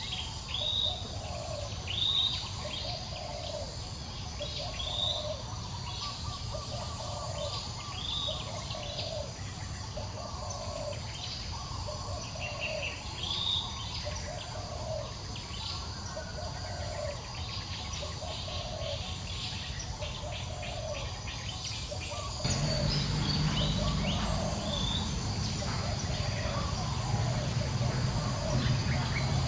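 Outdoor ambience of birds calling over insect buzz: a low call repeats about once a second, with higher chirps in between. About three quarters of the way through, a steady low rumble comes in suddenly and the sound gets louder.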